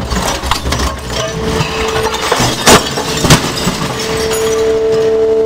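Scrap crusher breaking up electronic car parts: plastic casings and circuit boards cracking, snapping and clinking over the steady hum of the machine. Two loud cracks come a little past the middle, about half a second apart, and the hum grows steadier and louder near the end.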